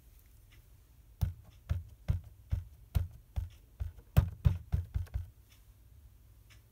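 An ink pad and a stamp tapped together about a dozen times, two or three light taps a second: inking up a stamp. The tapping starts about a second in and stops about five seconds in.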